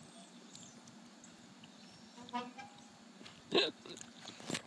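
A young child's short vocal sounds, little grunts and breaths of effort while hanging from the bars, a soft one about two seconds in and a louder one about three and a half seconds in, then a sharp tap near the end.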